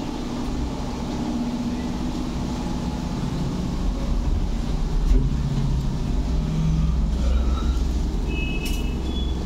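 A steady low droning rumble of a running engine or motor, with a few short high beeps near the end.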